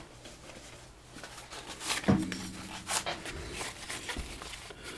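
Small clicks and knocks from a Tesa TK100 lock being handled as it is taken apart. The loudest knock comes about two seconds in with a short ring after it, another about a second later, and lighter ticks around them.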